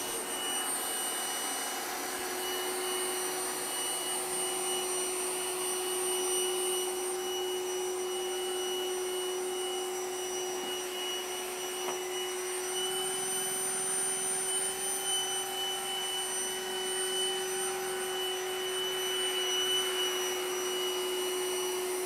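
Trifo Lucy robot vacuum cleaner running while it cleans: a steady motor hum with thin high whines and a rushing hiss from its suction.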